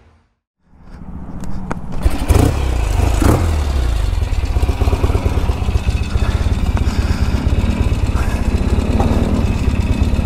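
Norton Commando's parallel-twin motorcycle engine running, fading in after a brief gap near the start, revved twice about two and three seconds in, then held steady.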